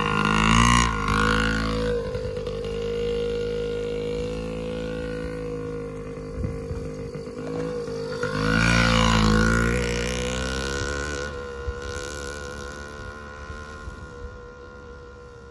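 Small single-cylinder two-stroke engine of a Yamaha PW50 kids' dirt bike, revving as the bike pulls away. It surges about a second in and again, loudest, about eight seconds in, then fades as the bike rides off.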